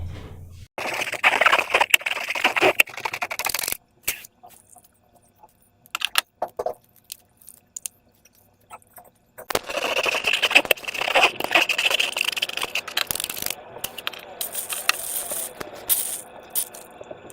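Slime being handled with transparent balloons: dense crackling, clicking squish sounds in two long stretches, starting about a second in and again near ten seconds in, with only scattered clicks in the pause between.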